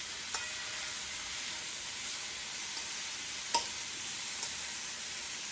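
Shrimp frying in oil, a steady sizzle with a few short sharp ticks, the loudest about three and a half seconds in.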